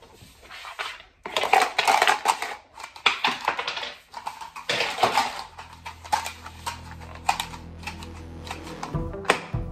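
Small plastic dice rattling inside a plastic dice-stacking cup as it is shaken, in several bursts of clicking.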